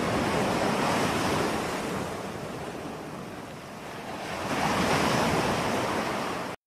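Ocean surf washing onto a shore: a steady rush of breaking waves that eases off in the middle and builds again, then cuts off suddenly near the end.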